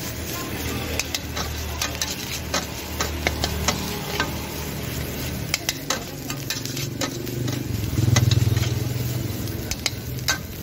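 A metal spatula scrapes and taps a steel wok as fried rice (nasi goreng) is stir-fried, with a steady sizzle underneath and many sharp clicks of metal on metal. A low hum swells briefly about eight seconds in.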